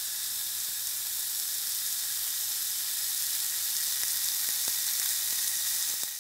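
Beef cuvette (rump cap) sizzling on a hot grill grate: a steady hiss, with a few faint pops in the second half.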